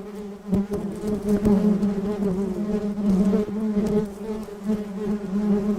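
A bee buzzing steadily, a low hum that wavers slightly in pitch and loudness.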